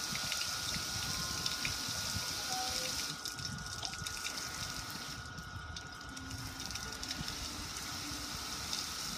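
Water splashing and running down the metal lid and front panel of a gas grill, a steady rushing spatter that eases off a little about three seconds in and picks back up.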